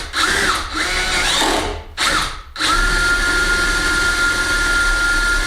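Power drill countersinking a screw hole in a door with a 10 mm bit: a few short trigger bursts with the motor speeding up and slowing, then a steady run of about three seconds that stops near the end.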